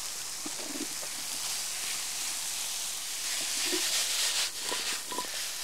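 Chanterelles and apple quarters sizzling in a frying pan, a steady hiss that swells a little in the middle, with light scrapes of a spatula stirring them.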